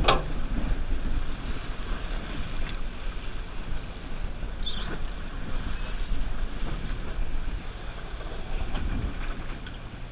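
Steady low rumble of a 125-foot party boat's engines, with water washing along the hull. A brief high chirp comes about five seconds in.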